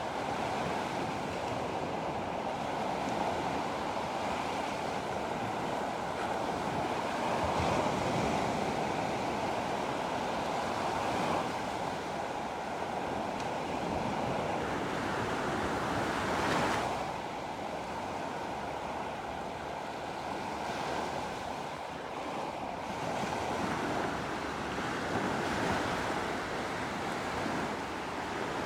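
Sea waves washing onto the shore in a continuous surf that swells and ebbs, with one wave breaking loudest a little past halfway.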